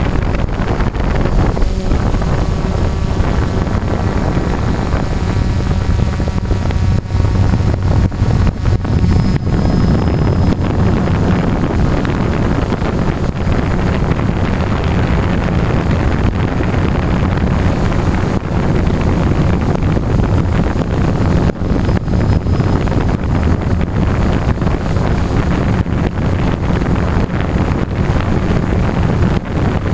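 DJI Phantom quadcopter's electric motors and propellers running in flight, a loud steady buzzing drone with wind buffeting the microphone. In the first few seconds fainter higher tones shift in pitch as the motor speeds change.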